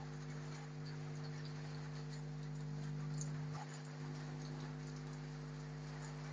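Rain falling with a steady hiss and scattered pattering drips, over a steady low electrical-sounding hum.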